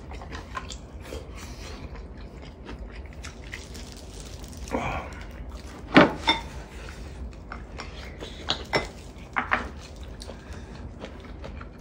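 Close eating sounds: wet chewing and slurping of braised kimchi and mackerel stew, with chopsticks and spoons clicking against bowls. A few sharper clicks come in the middle.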